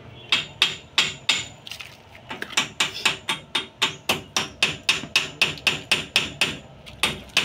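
Repeated hammer blows in a steady rhythm, about three to four strikes a second, each sharp with a short ring. There is a brief pause about two seconds in.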